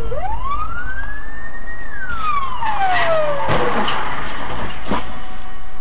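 Emergency-vehicle siren wailing: one slow rise in pitch, then a slow fall, over steady road noise. Two sharp knocks come in the second half.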